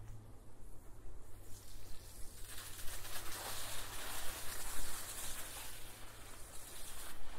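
Bicycle tyres rolling over a gravel path, a rough crunching hiss that builds over the first couple of seconds and stops abruptly near the end.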